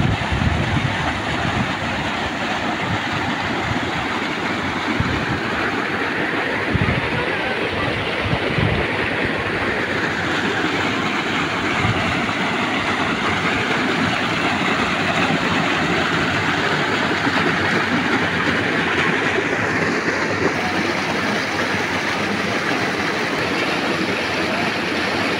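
Water pouring through a gap in a small stone weir into a creek: a loud, steady rush of churning whitewater.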